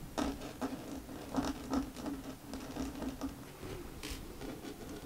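Montana acrylic paint marker's fine tip drawing on a hard sketchbook cover: a run of short, separate scratchy strokes and dabs as small doodles are drawn.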